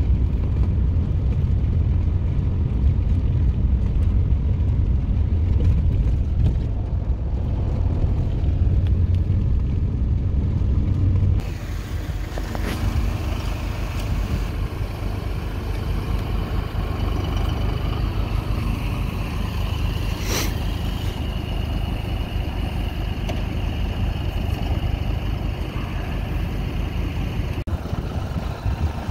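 Low rumble of a pickup truck driving, heard from inside the cab. About 11 seconds in it switches to a New Holland compact tractor running as its front loader lifts round hay bales, with a steady high whine through the second half and a single sharp knock.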